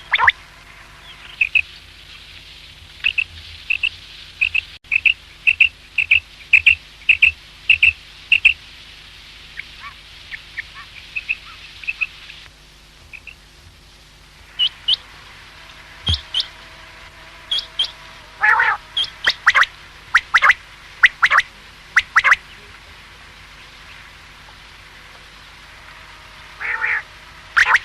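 Common quail calling: short, sharp notes repeated about twice a second in runs, with pauses between the runs, over a faint steady hum.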